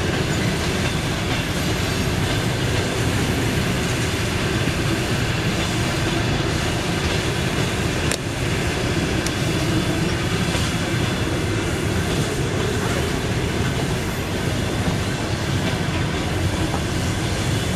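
Passenger coaches rolling past at speed: a steady rumble of wheels on the rails, with one sharp click about eight seconds in. The last coach passes near the end.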